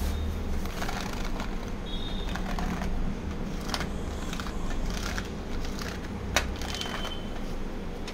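Capsules clicking and rattling against each other and the perforated stainless-steel loading tray of a hand-operated capsule filling machine as a hand sweeps them into its holes, in many small irregular clicks with one sharper click about two-thirds of the way through. A steady low hum runs underneath.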